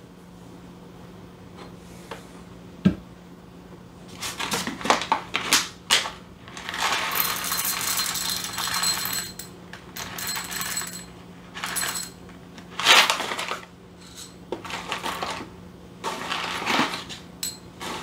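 Whole coffee beans clattering and clinking into a small glass on a scale as an espresso dose is weighed out, in several separate pours and shakes, with the rustle of a paper towel wiping the machine's drip tray in the middle.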